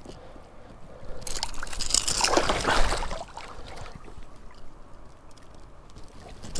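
Water splashing and sloshing for about two seconds, starting about a second in, then dying down to a faint wash.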